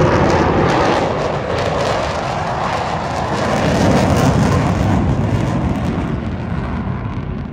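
Loud jet engine noise from a military jet flying past the crowd. It swells again about four seconds in and fades away near the end.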